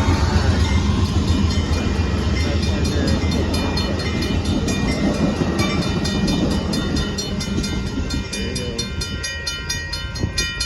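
An Amtrak passenger train rolling past. The locomotive's low diesel rumble eases off after the first few seconds. A fast, even clicking with a steady high ringing comes in and grows stronger from about halfway through.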